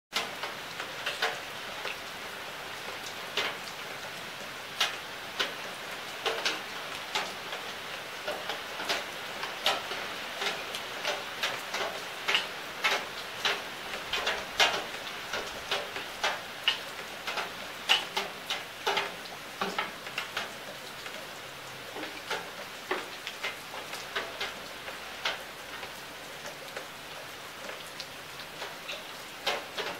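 Steady rain: an even hiss with many sharp, irregular drop hits close by, a few a second.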